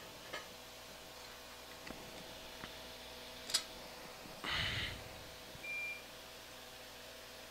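Quiet micro-soldering workbench with a faint steady hum and a few small tool clicks. About two-thirds through there is a short rush of noise, followed soon after by a brief high beep.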